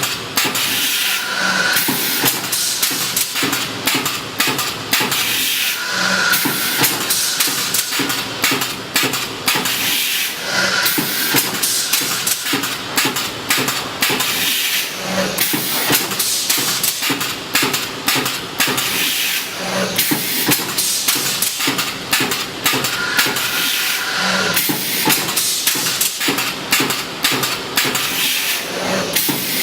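Automatic spiral fan guard looping and welding machine running through its cycle: rapid metallic clattering over a steady hiss, with a short tonal blip repeating about every four and a half seconds.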